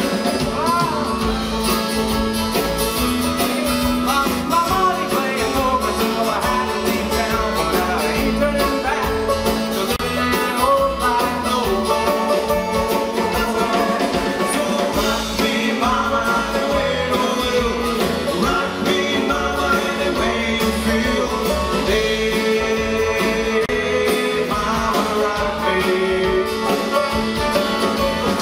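Instrumental break of a bluegrass-style country song: plucked strings, guitar among them, play a busy melody over a steady held low note.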